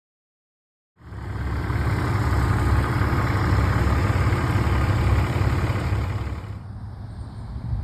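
Heavy machinery engine running loud and steady, coming in abruptly about a second in; near the end the hiss drops away and it runs quieter.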